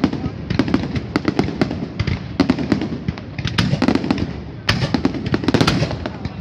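Aerial fireworks display going off: a dense, irregular stream of bangs and crackling, several per second.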